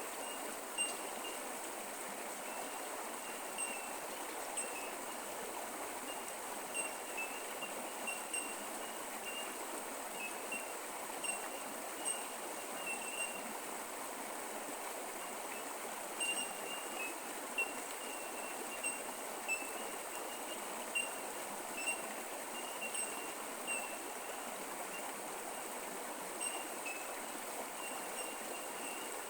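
Creek water running steadily over rocks, with short, high chirps from a small animal repeating irregularly throughout.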